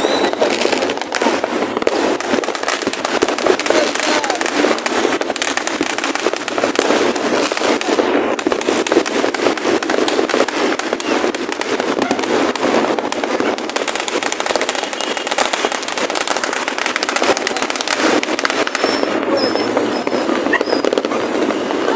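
Fireworks and firecrackers going off in a dense, continuous barrage of pops and crackles, with no pauses.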